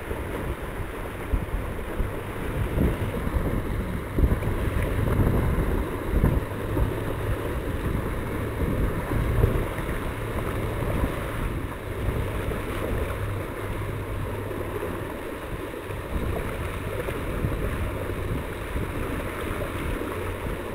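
Water rushing along the hull of a small sailboat moving fast, with wind buffeting the microphone in uneven gusts.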